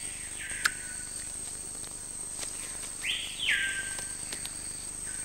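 Rainforest ambience: insects keep up a steady high drone while a bird calls twice. Each call slides down from a high note to a lower held note, the second one about three seconds in and louder. There is one sharp click under a second in.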